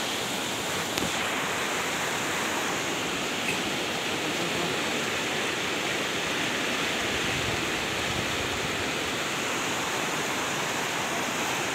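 Fast, swollen, muddy river rushing steadily over rocks.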